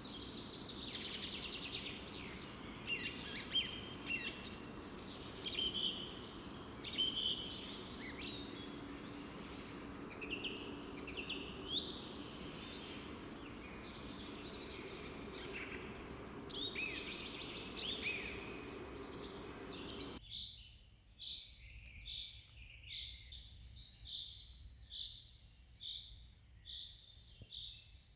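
Several songbirds singing a mix of varied chirps and trills over a steady low background hum. About two-thirds of the way through, the background drops away suddenly, and one bird repeats a single short note about three times every two seconds.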